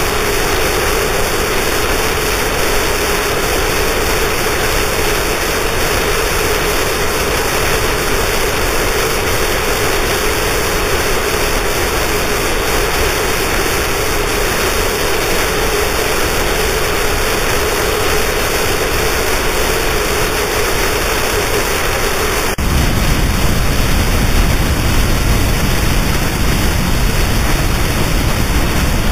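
Harsh noise music: a dense, unbroken wall of static hiss with a steady droning band in the low mids. About three-quarters of the way through it cuts abruptly to a slightly louder, deeper, rumbling wall of noise.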